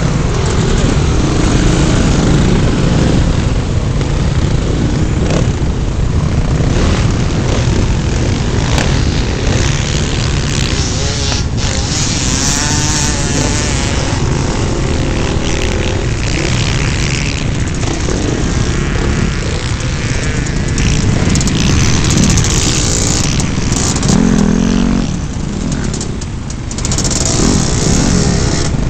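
Several off-road dirt bike engines running and revving close together, heard through a helmet-mounted camera's microphone. Loudness dips briefly near the end.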